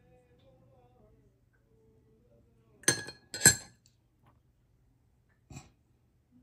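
A metal spoon clinks twice against a drinking glass of water, about half a second apart. Each clink rings briefly, and the second is louder. A soft knock follows near the end.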